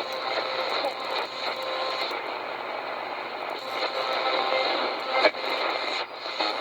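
Portable shortwave radio's speaker giving steady static and hiss while tuned between stations, with faint whistling tones and a few sharp clicks of interference, one loud crack about five seconds in.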